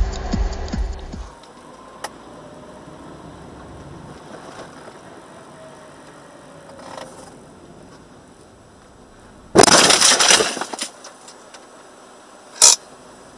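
Background music with a beat cuts off about a second in. Low road noise follows, picked up by the dashcam inside the car. About ten seconds in comes a loud, sudden crash lasting about a second: a vehicle collision with the sound of breaking. A single sharp knock follows a few seconds later.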